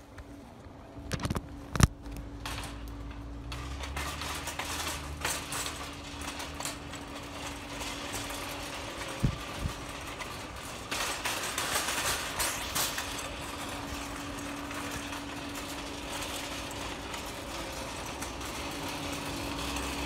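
A steady mechanical hum over a low rumble. Sharp knocks come near the start and again about nine seconds in, and a patch of rushing noise, like wind or rubbing on the microphone, comes around the middle. No horn sounds.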